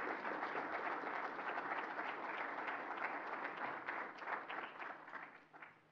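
Audience applauding: a dense round of clapping that thins into a few scattered claps and dies away near the end.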